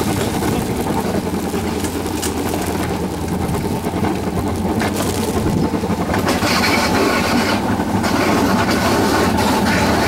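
Alpine coaster sled running downhill on its steel rails: a steady rumble of the wheels on the track.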